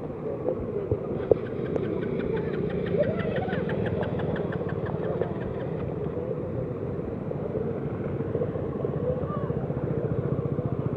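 A motor vehicle's engine running steadily with an even, rapid pulse, and a rhythmic ticking over it for a few seconds near the start.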